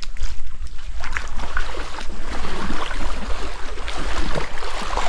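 Water sloshing and splashing as someone wades through a shallow, rocky creek, with wind rumbling on the microphone.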